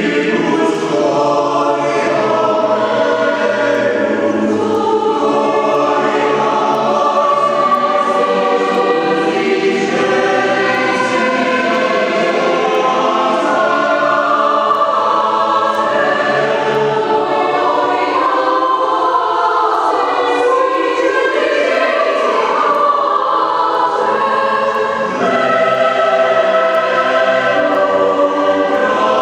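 Mixed high-school choir of girls' and boys' voices singing a sustained piece in several parts, under a conductor in a church.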